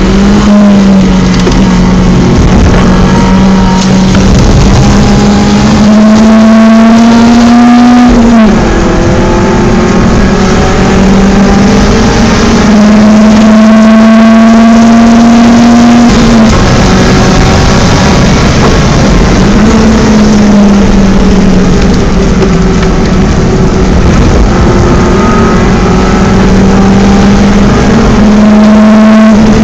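BMW 318is four-cylinder engine pulling hard at high revs, its note climbing slowly, with a sharp drop in pitch at a gearshift about eight seconds in. It falls off again twice later, lifting off and picking up.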